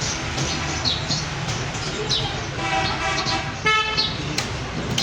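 A vehicle horn toots: a longer note about two and a half seconds in, then a short sharp one just after, over a steady low hum.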